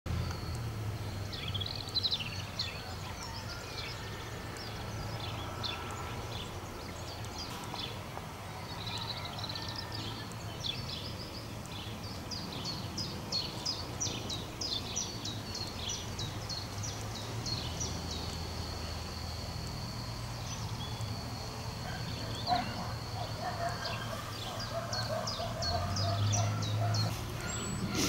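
Songbirds singing: many quick, high chirps and trills, over a steady low hum. A run of lower repeated notes comes in near the end.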